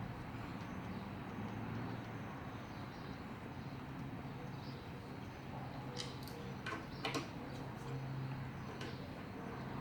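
A few light clicks and taps of small metal parts and hand tools being handled during lawnmower carburetor disassembly, three close together about six to seven seconds in, over a steady low background hum.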